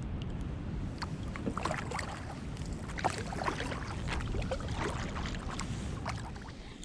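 Kayak paddle strokes splashing and dripping in river water, over a steady low rumble. The splashing thins out near the end.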